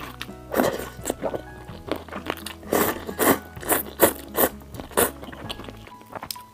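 A person loudly slurping hot and sour noodles, a run of about six short slurps less than a second apart, over background music.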